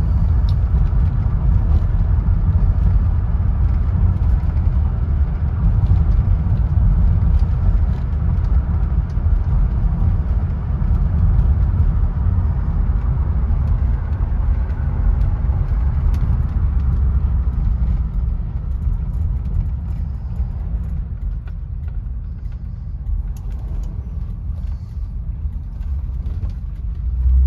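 The 1979 Lincoln Mark V's V8 engine and its tyres on pavement, heard inside the cabin while the car is being driven: a steady low rumble that gets somewhat quieter in the last several seconds.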